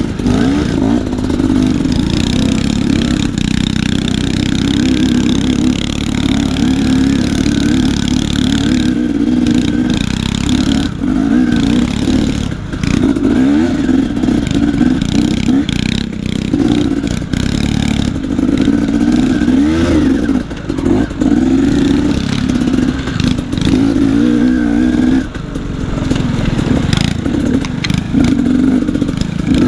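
KTM dirt bike's engine running under the rider, its pitch rising and falling as the throttle is worked, with several brief dips as the throttle is rolled off.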